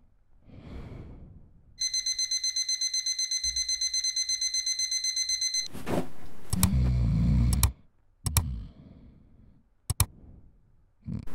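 Digital alarm clock beeping rapidly and evenly for about four seconds, then stopping. Just after it comes a sharp knock and a loud low sound, followed by a few short clicks.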